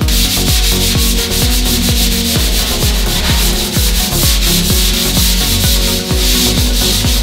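Sanding on a bare steel fender flare, a steady loud hiss, over background music with a steady beat.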